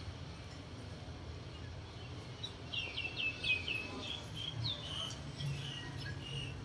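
A bird calling: a quick run of about five short, falling chirps a few seconds in, then scattered single high notes, over a steady low hum of background noise.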